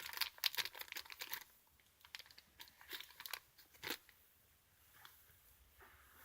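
Close handling of small objects: a rapid crinkling, clicking rustle for about a second and a half, then scattered small clicks and taps, with a sharper click about four seconds in.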